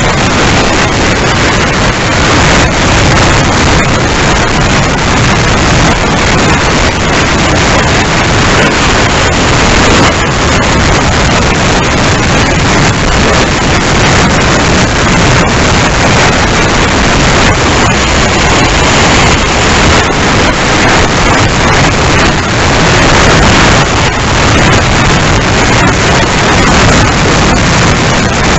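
Loud, steady rush of wind buffeting the onboard camera's microphone on a Freewing Lippisch P.15 RC plane flying fast.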